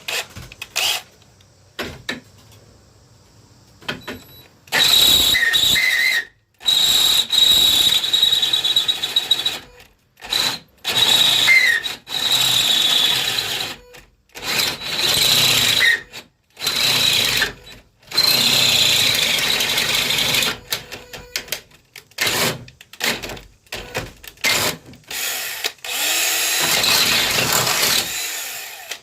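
Cordless power drill boring a hole, running in repeated bursts of one to three seconds with short pauses between, a steady high whine over the grinding of the bit. The drilling starts about five seconds in.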